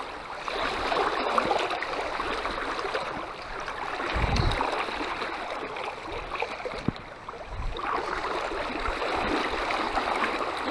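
Fast creek water rushing and splashing over a shallow riffle, with a couple of dull low thumps, one about four seconds in and another near eight seconds.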